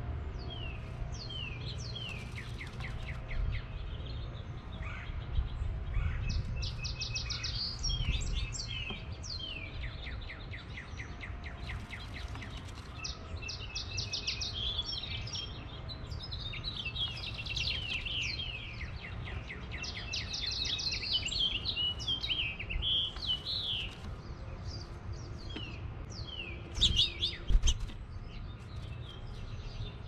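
Male house finch singing: long, jumbled warbles of rapid chirps and trills, coming and going, with a louder burst of notes near the end.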